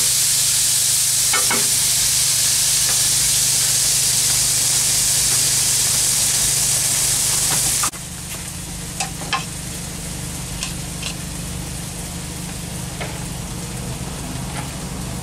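Chopped chicken sizzling loudly on a flat-top griddle under a steel grill press. The sizzle cuts off abruptly about eight seconds in, leaving a low steady hum with light clicks and taps as rice is scooped into a foam clamshell box.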